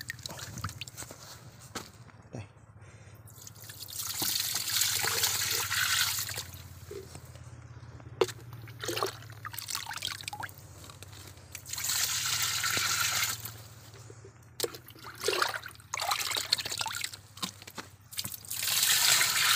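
Liquid scooped with a plastic scoop from a bucket and poured into a plastic barrel of fermenting fish mash. It comes in three pours of a second or two each, a few seconds apart, with drips and small clicks of the scoop in between.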